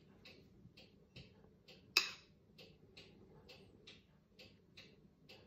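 Faint, even ticking, about three ticks a second, with one sharp clink about two seconds in from a metal spoon touching the crockery while sauce is spooned onto a taco.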